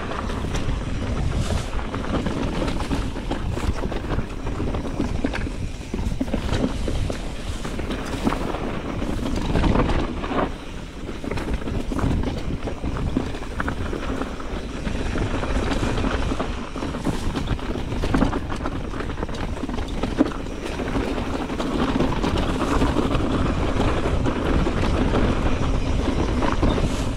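Mountain bike riding a rough trail: steady wind rush on the camera microphone, with frequent knocks and rattles from the bike jolting over the ground.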